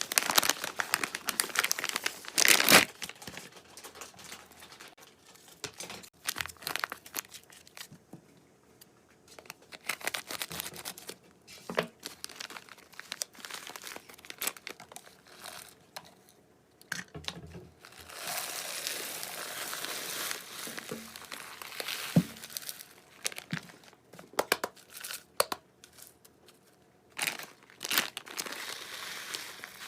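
Plastic food packaging crinkling and rustling in irregular bursts with short pauses, with a few light knocks in between.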